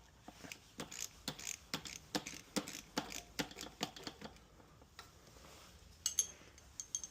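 Ratchet wrench clicking as a bolt on the dirt bike's engine is unscrewed: a run of short ticks about three or four a second for roughly four seconds, then a pause and a few more ticks near the end.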